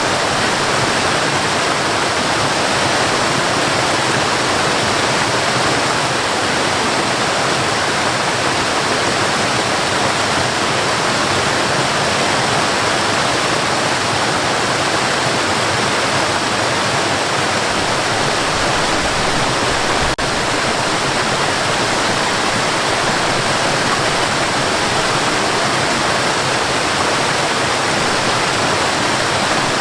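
Cascading water falling and rushing in a steady, unbroken stream.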